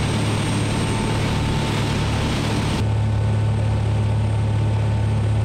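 Charter fishing boat running at speed: a steady engine drone with the rush of water and wind along the hull. About three seconds in the sound changes abruptly, the hiss thinning and the low engine drone growing stronger.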